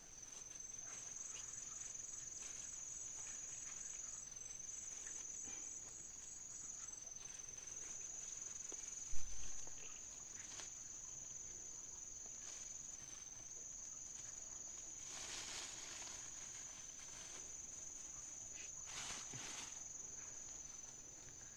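Insects trilling steadily in one high, unbroken tone, with a single dull thump about nine seconds in and a few short rustles later on.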